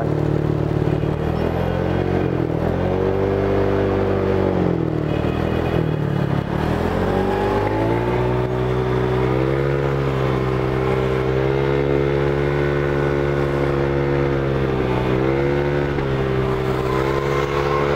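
Single-cylinder engine of a Honda Click/Vario 125 scooter bored out to 63 mm with a BRT kit, pulling away and accelerating under light throttle. The engine note rises, falls back and rises again, then holds steady at cruising speed, with a short dip near the end.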